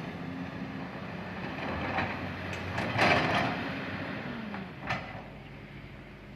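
Heavy construction machinery's diesel engine running, with several sharp clanks of metal and rock, the loudest about three seconds in; the engine note drops in pitch a little past the middle.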